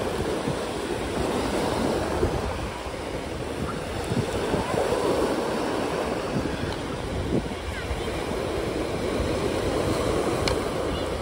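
Small waves breaking and washing over a pebble shore, a steady rush of surf, with wind buffeting the microphone.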